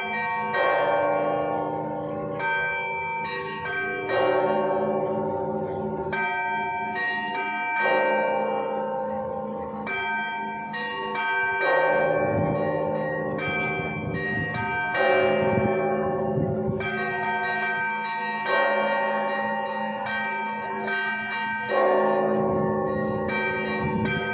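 Russian Orthodox church bells ringing a measured Rostov-style peal: a heavy chord from the big bells lands about every three and a half seconds, with the smaller bells ringing steadily in between.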